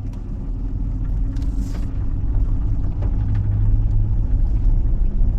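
Van engine running with a steady low rumble as it moves slowly, a few faint ticks and a short hiss about a second and a half in.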